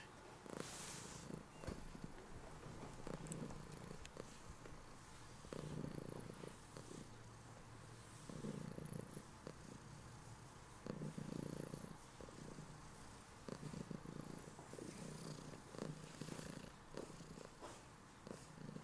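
Domestic cat purring close up, the purr swelling and easing in a slow rhythm with each breath, about every two and a half to three seconds.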